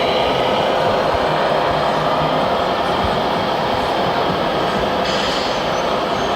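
Radio-controlled scale construction machines running: a steady mechanical whine and hum, with a brief higher whine about five seconds in.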